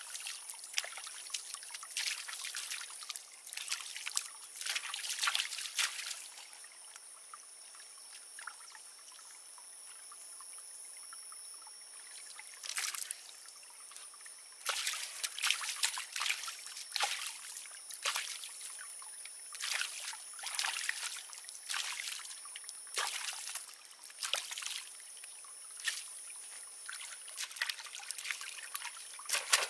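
Water sloshing and trickling in short, irregular splashes, with a calmer spell about seven to twelve seconds in.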